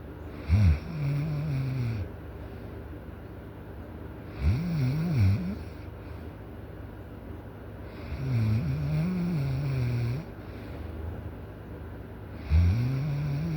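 Loud snoring from a sleeping person: four long snores, one about every four seconds, each starting with a sudden louder onset; the last one runs past the end.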